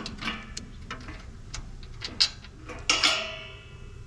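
Hand ratchet with a socket clicking in irregular strokes as a rusted bolt is backed out, with a ringing metallic clink about three seconds in.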